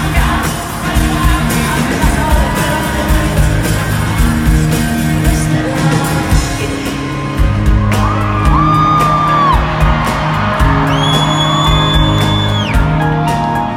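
Loud live pop-rock concert music from a band: a steady heavy beat and bass under singing, with long held high notes in the second half. Audience whoops and shouts come through over it.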